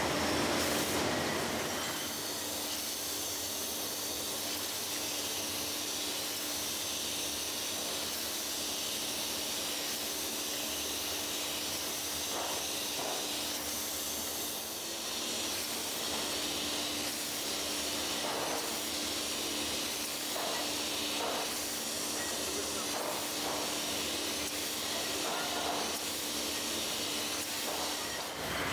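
Beer bottling line running: a steady hiss over a constant machine hum, with a few faint clicks in the second half.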